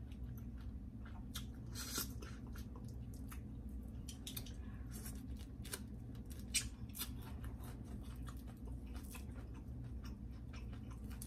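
Close-up eating sounds of blue crab: shell cracking and picking and chewing, a scatter of many short sharp clicks and crackles, over a steady low hum.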